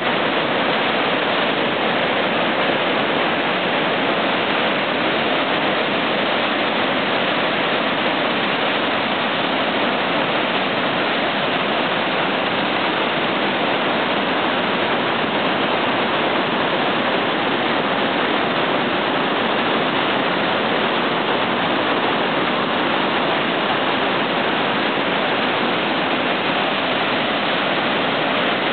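Glacial meltwater torrent rushing over rocks in white water, a steady, unbroken roar.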